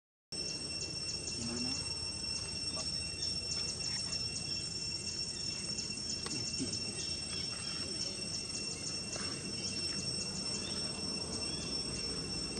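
Outdoor insect chorus: a steady high-pitched drone with rapid trains of short, high chirps repeating throughout. The sound drops out for a moment right at the start.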